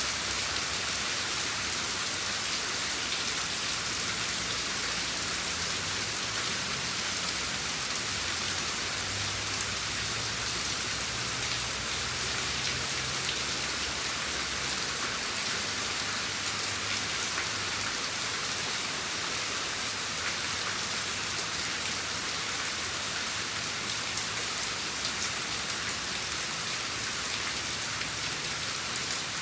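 Steady rain falling, an even hiss made up of many fine drops, with a faint low rumble underneath.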